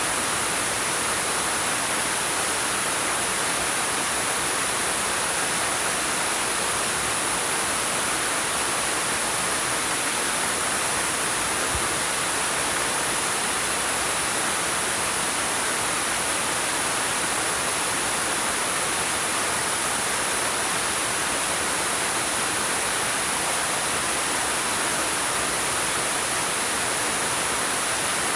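Waterfall pouring over rocks: a steady, even rush of water with no breaks.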